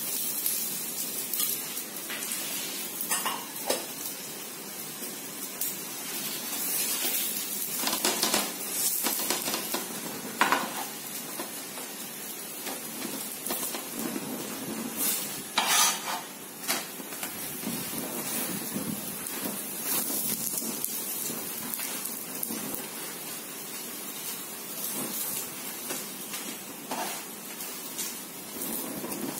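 Oil sizzling under stuffed parathas shallow-frying on a non-stick tawa, with a spatula scraping and knocking on the pan a few times, loudest about 16 seconds in.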